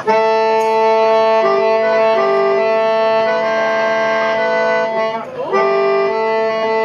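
Reedy free-reed instrument playing held chord tones over a steady low drone, changing chord about once a second. The tones break off briefly about five seconds in, then resume.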